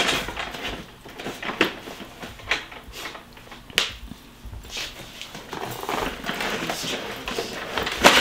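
Plastic parts of a 4moms baby swing being handled and fitted during assembly: scattered clicks and knocks, a few sharper ones, over rubbing and rustling.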